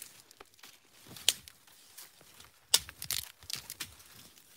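Dry branches and twigs snapping and crackling as they are broken and handled by hand, with two sharp snaps: one about a second in, and a louder one just after halfway.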